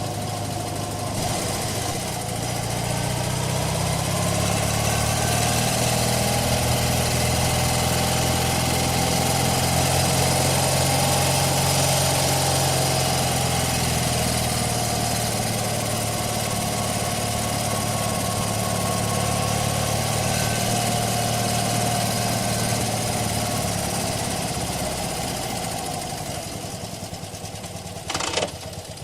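Motorcycle engine running steadily, its pitch and level rising slowly at first, then holding and gradually fading away in the last few seconds. A short sharp noise comes near the end.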